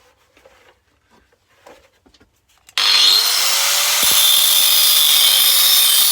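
Light handling clicks, then about three seconds in an angle grinder spins up with a rising whine and cuts steadily into the metal casing of a car air-conditioning compressor.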